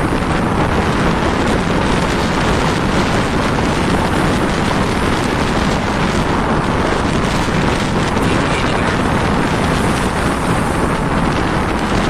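Strong wind buffeting the microphone at sea, a steady loud rush over rough, whitecapped water.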